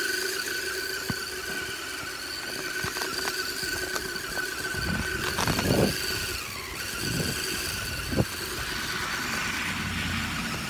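Electric motor and gearbox whine of a 1/10-scale RC crawler truck pushing a V snow plow through deep snow. It is a steady high whine that dips in pitch briefly about six and a half seconds in, with a louder rush of noise just before and a few short knocks.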